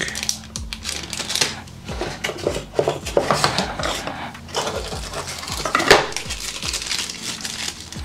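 Plastic packaging crinkling and rustling as it is handled, with light clicks and knocks; the sharpest click comes about six seconds in.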